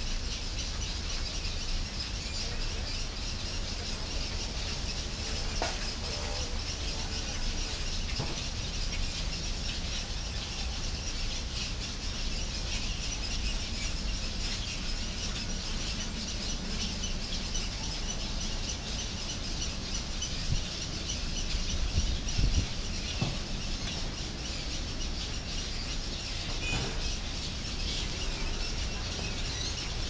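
Many birds calling at once in the trees, a continuous high-pitched din of overlapping calls, over a steady low rumble.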